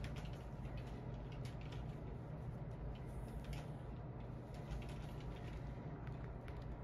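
Light, irregular clicks and scratches as a gopher tortoise is handled, its claws and shell against hands and a paper exam mat, over a steady low room hum.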